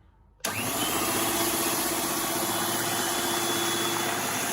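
Electric mixer beating cake batter: switched on about half a second in, then running steadily at one speed with a constant hum.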